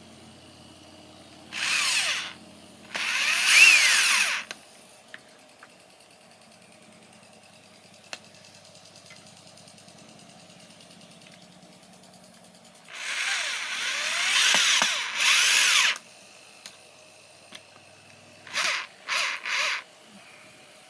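Power drill driving screws in bursts: two runs early on, two longer runs midway, then three short pulses near the end as the screws are snugged tight.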